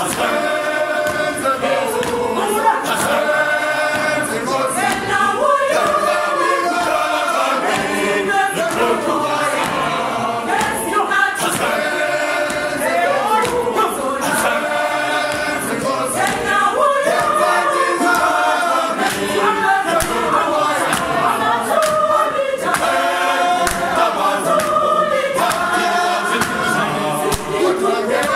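Combined adult choir singing, many voices together.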